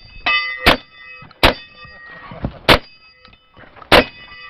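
Four shotgun shots at uneven intervals, each followed by the ringing of a struck steel target.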